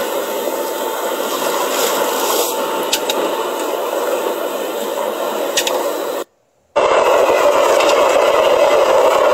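Wind buffeting a phone microphone over the rush of sea water along a sailing boat's hull: a steady rushing noise. It cuts out completely for half a second about six seconds in, then returns with more low rumble.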